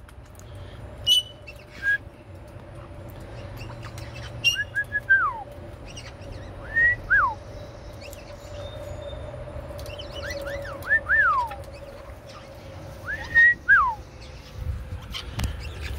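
Caiques giving whistled calls: four bursts of short chirps, each ending in a downward-sliding whistle, over a faint steady hum.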